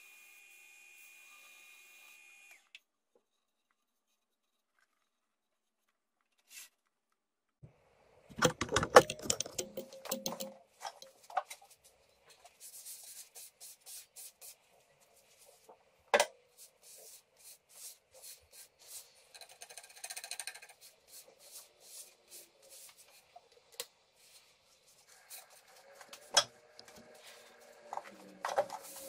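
Wood lathe workshop work on a turned bowl. A high machine whine cuts off about two and a half seconds in, then after a few silent seconds comes a loud clatter of knocks and clicks. Scattered rubbing and scraping follow against a faint steady hum, typical of sanding or working the bowl by hand.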